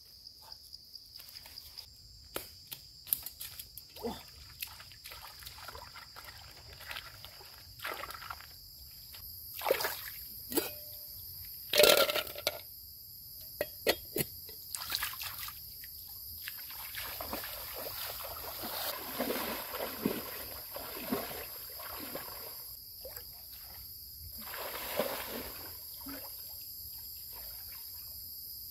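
Water splashing and trickling in short, irregular bursts as something is handled in water by hand, with a few sharper knocks, the loudest about halfway through. Behind it runs a steady, high jungle insect drone.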